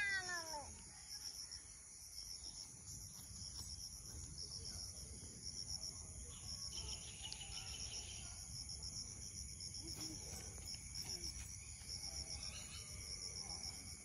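Insects chirping in a steady, evenly pulsed high chorus. A child's voice trails off right at the start.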